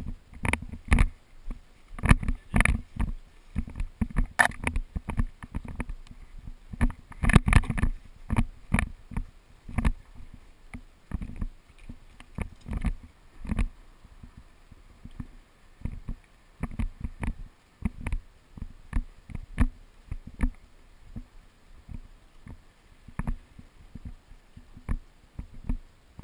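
Irregular knocks and rustling close to the microphone, like handling and movement noise, densest about two seconds in and again around seven seconds.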